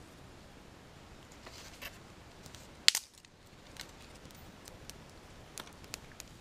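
Small fire of dry bamboo leaves and twigs crackling with a few scattered pops, and one sharp, loud snap about three seconds in.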